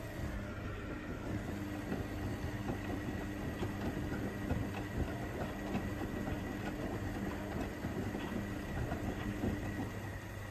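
Front-loading washing machine running its wash cycle: the drum motor hums steadily, starting just after the start and stopping shortly before the end, while the tumbling load clicks and rattles irregularly.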